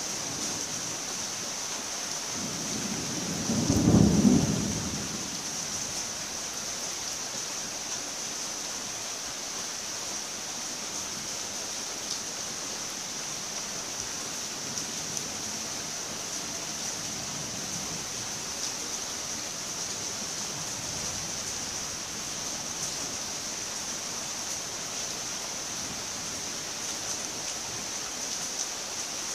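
Steady rain hiss, with a low rumble of thunder swelling and fading about three to five seconds in.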